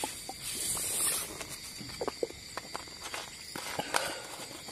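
Drinking from a glass bottle: gulps and hissy breaths in the first second. Then a few small clicks and knocks as the bottle is handled, over a steady high chirring of crickets.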